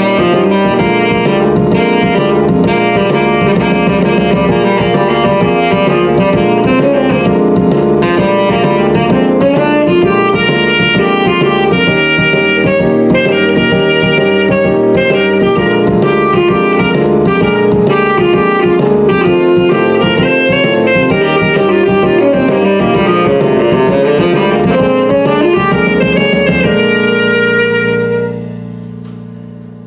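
Tenor saxophone playing a blues line over an accompaniment with drums. Near the end the music stops on a held final chord that fades out.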